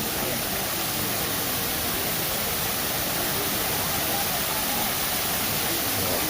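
Steady rushing hiss of Shiraito Falls, spring water pouring over a wide rock face in many thin streams, at an even level throughout.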